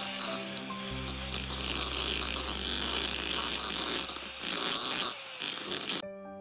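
Electric hand mixer running at speed, its wire beaters whisking cream cheese and butter in a bowl, with a steady high motor whine; it switches off suddenly about six seconds in.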